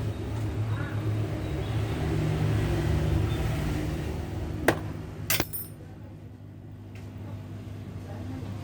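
Steady low rumble, with a sharp click about five seconds in and a quick pair of clicks just after.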